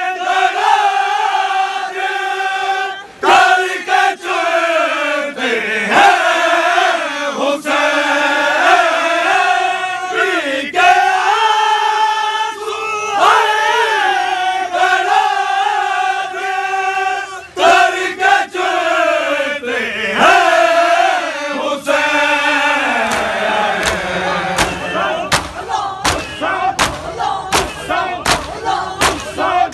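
A group of men chanting a noha, a Shia Muharram lament, loudly and in unison. Toward the end, rhythmic matam starts under the chant: open-handed strikes on bare chests, about two a second.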